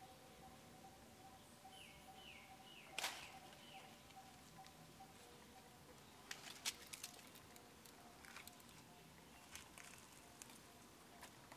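Near silence, broken by a few short falling chirps about two seconds in and by scattered sharp clicks and taps, the loudest about three seconds in and a cluster just before seven seconds.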